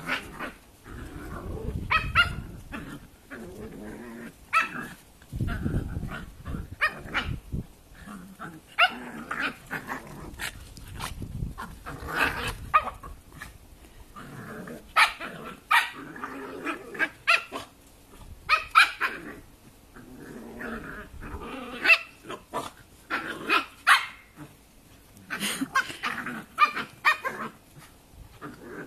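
Two Cavalier King Charles Spaniels barking and growling at each other in rough play, with short sharp barks coming in quick clusters throughout.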